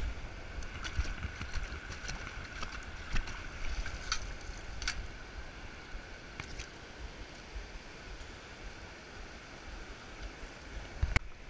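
Steady low rumble of wind and surf on the microphone, with scattered light clicks and knocks from the metal sand scoop and the sunglasses being handled, and one sharper knock near the end.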